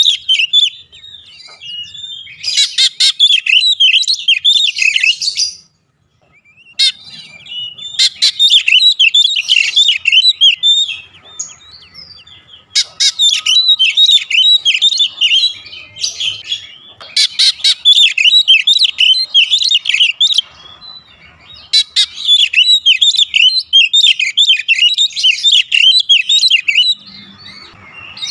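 Oriental magpie-robin (kacer) singing: rapid, high, varied song phrases of two to three seconds each, about five of them, with short pauses between.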